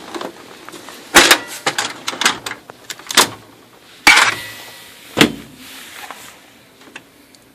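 A string of sharp clunks and clatters from an OKI MB480 printer, about five loud knocks spread over five seconds with smaller rattles between, dying away near the end.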